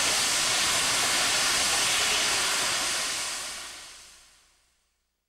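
Milwaukee Road 261, a 4-8-4 Northern steam locomotive, hissing steam loudly and steadily. The hiss fades away from about three seconds in and goes silent near the end.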